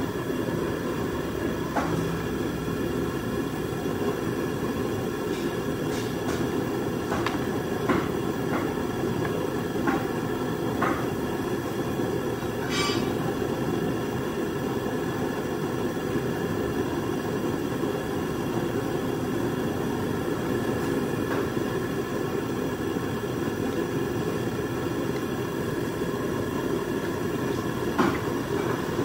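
Steady low rushing noise with a few light clicks and knocks scattered through it.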